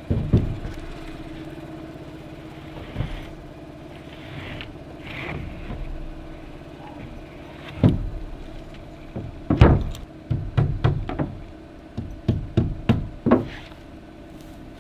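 A power saw cut stops right at the start, then sharp knocks on wooden framing lumber: one about eight seconds in, then two quick clusters of knocks around ten and thirteen seconds in.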